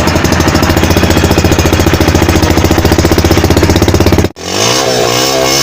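Yamaha YBR 125G's single-cylinder four-stroke engine idling with an even, fast pulse. About four seconds in there is an abrupt cut, and the engine revs up and comes back down.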